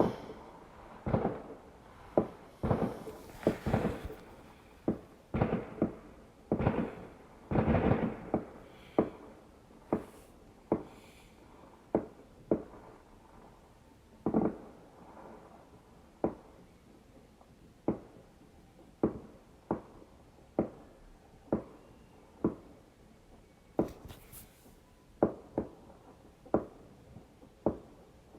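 Fireworks exploding: a long run of sharp bangs, each fading quickly, coming thick and fast at first and then about one a second, with a brief crackle twice.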